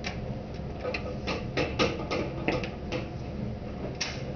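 Record-player turntable spinning a wire-mesh screen around a fire tornado: a steady low rushing, with irregular clicks and ticks at the start, clustered over the next couple of seconds, and once more near the end.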